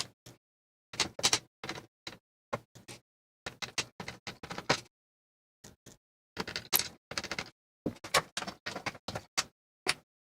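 Irregular clicks, taps and short rattles of a keyboard's case parts and screws being handled and fitted during reassembly.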